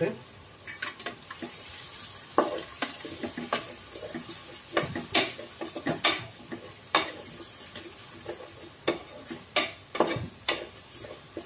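Spatula stirring onions, green chillies and curry leaves frying in an aluminium pot, knocking and scraping against the pot at irregular intervals over a faint sizzle.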